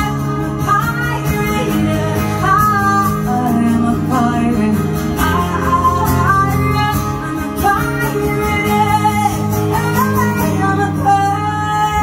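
Live band music in an instrumental passage of the song: guitar with a wandering lead melody over steady low notes.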